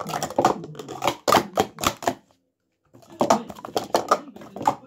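Plastic sport-stacking cups clacking rapidly as they are stacked up and down on a mat: a fast, uneven run of sharp clicks. It cuts out completely for well under a second just past two seconds in, then resumes.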